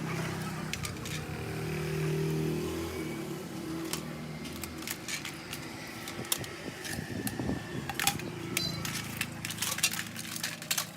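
An engine hum for about the first five seconds, then a run of sharp clicks and clatter.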